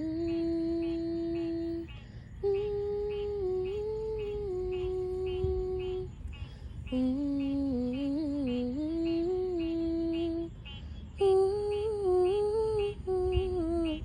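A person humming a slow tune in long held notes, pausing briefly about 2, 6 and 10 seconds in, over a chorus of frogs calling in an even rhythm of about three calls a second.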